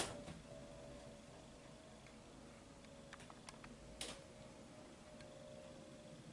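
Very quiet, with a few faint ticks and taps and one slightly sharper tap about four seconds in: a cat's claws and paws on a windowsill.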